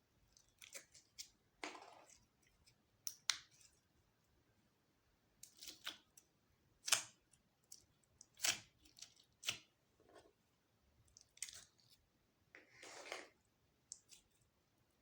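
Slime being mixed and kneaded by hand: irregular sticky squelches and small popping clicks at uneven intervals.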